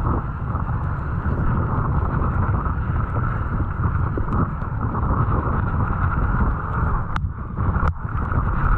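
Steady wind buffeting and rumble on the camera microphone as a mountain bike rolls down a wet, muddy trail, with tyre and frame noise. Two sharp knocks come about a second apart near the end.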